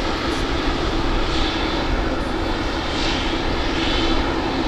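Boeing 777F's GE90 turbofan engines running steadily at low power on the ground, an even jet rumble and hiss with a low hum.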